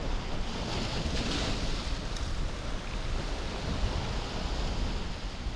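Wind buffeting the microphone with a steady low rumble, over the wash of a choppy sea.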